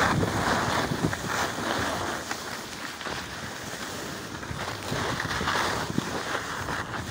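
Wind rushing over the microphone and the scraping hiss of sliding down a hard, chopped-up ski piste at speed. The scraping swells with the turns, loudest in the first two seconds and again around five seconds in.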